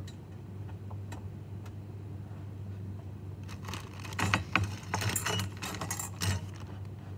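Small metal parts clicking and clinking against perforated VEX steel plates as a screw and hex nut are fitted by hand, with a few light clicks and then a quick run of rattling clicks about halfway through. A steady low hum sits underneath.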